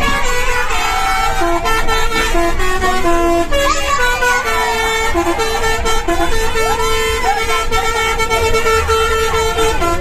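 Basuri multi-tone musical horns on tour buses playing 'telolet' tunes: held notes that step between a few fixed pitches, every half second to a second, over the low rumble of the bus engines.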